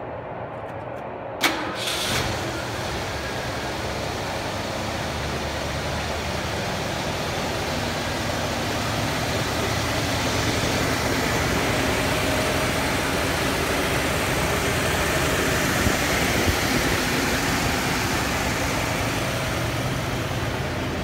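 1979 Lincoln Continental Town Car's 400 cubic-inch OHV V8 starting about one and a half seconds in, then running at a steady idle.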